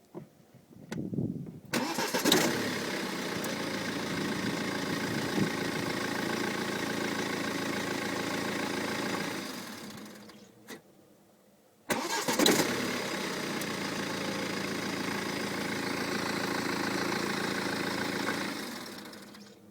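BMW 318d N47 four-cylinder diesel started twice, each time idling steadily for about seven seconds and then switched off. As it runs down at each shutdown there is the "flflflf" flutter the owner was chasing, which went away once the worn timing chain and tensioners were replaced.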